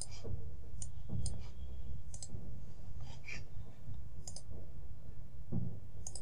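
Scattered single clicks, about seven in six seconds, over a steady low hum.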